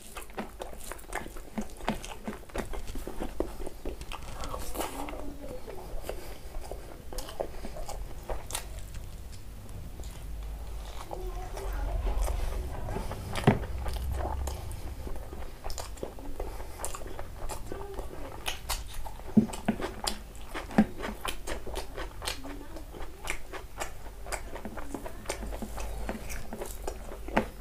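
Close-up eating sounds: chewing and biting with many small wet mouth clicks, as biryani and chicken in gravy are eaten by hand. Rice is also being mixed by hand on a paper plate.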